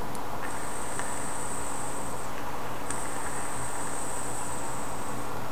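eGo passthrough e-cigarette firing its cartomizer during two drags, giving a thin high-pitched whine: once for about a second and a half, then after a short break for about two and a half seconds. A faint click comes at the start of each, and a steady low hum lies under it.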